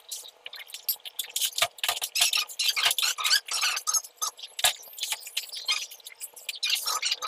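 Irregular squeaks and clicks, several a second, from a white PP-R plastic water pipe being handled by hand where it is clipped along the ceiling.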